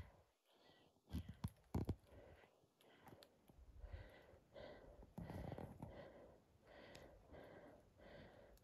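Near silence, with a few faint handling clicks near the start and then soft, quick breathing close to the microphone.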